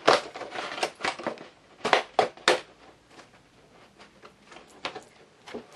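Doll packaging being handled and crumpled. There is a long rustling crunch in the first second, three sharp crackles around two seconds in, then a few scattered small clicks and rustles.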